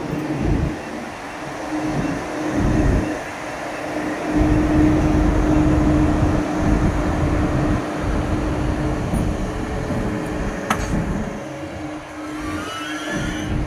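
ÖBB class 1116 Taurus electric locomotive rolling slowly past at close range: a steady electrical hum over a low rumble that swells and fades. Near the end a few rising whining tones come in as a red Siemens Vectron locomotive passes, and there is one sharp click about ten seconds in.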